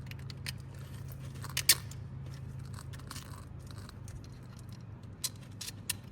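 Small plastic train-kit parts being handled and fitted onto an axle: scattered light clicks and taps, the sharpest a double click a little under two seconds in and two more near the end, over a steady low hum.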